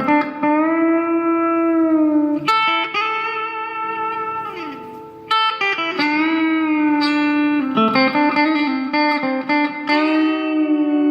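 Strat-copy electric guitar fitted with replacement pickups, played as a slow lead line. Held, sustaining notes with string bends and a slide down in pitch about halfway through.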